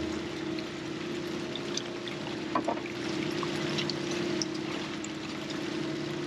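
Water splashing and draining from a long-handled dip net as fish are scooped out of a set net, with a few light knocks. A steady machine hum runs underneath throughout.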